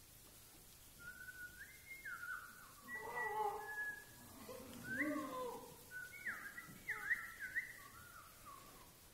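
Choir singers imitating jungle birds and animals: scattered whistled and voiced calls that swoop up and fall away, starting about a second in, thickest in the middle with some lower voices joining, then thinning out.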